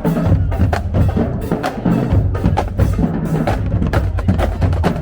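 Music with busy, fast percussion of sharp wooden-sounding hits over a heavy, steady bass.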